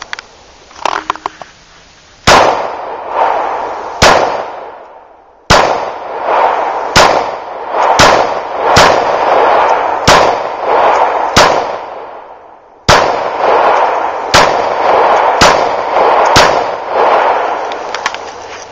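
Ruger SR9 9mm semi-automatic pistol fired about thirteen times at a steady pace, roughly one shot every second or so. Each shot is followed by a long echo. A few light clicks come before the first shot.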